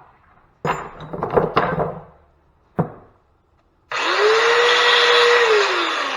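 Metal parts clattering and knocking, then a single sharp knock, then a handheld electric power tool spinning up with a steady whine and hiss, running for about a second and a half and winding down near the end.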